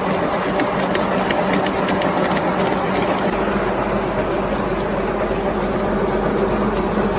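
Woodworking machinery in a spoon factory running steadily: a motor hum under a dense mechanical rattle, with a few light ticks near the middle.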